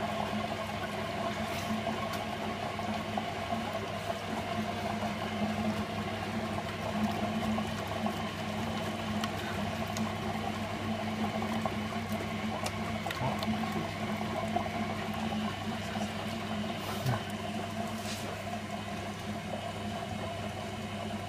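Servis Slimline 308S washing machine running a hot cotton wash: a steady motor hum with water sloshing and gurgling inside the machine.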